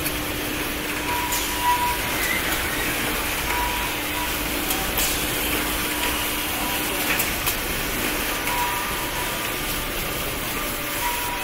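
Automatic maxi-roll band saw cutting machine and its log conveyor running: a steady machine din with a low steady hum, short recurring whines every second or two, and a few sharp clicks.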